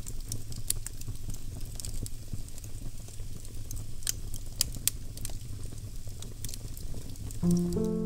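Wood fire crackling, with scattered sharp pops over a low, steady rumble of the flames. Near the end, instrumental music with piano-like notes comes in over it.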